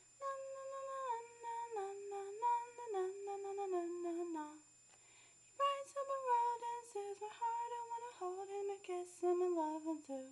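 A girl's voice singing a slow melody unaccompanied, in two phrases that each step down in pitch, with a pause of about a second between them.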